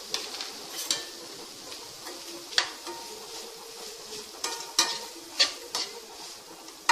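Vegetables sizzling in a pan while a spatula stirs them, with sharp taps and scrapes of the spatula against the pan every second or so; a few leave a brief metallic ring.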